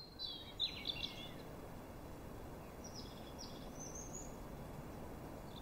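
Small birds chirping over a faint outdoor hiss: a few short, high calls in the first second and another cluster around three to four seconds in.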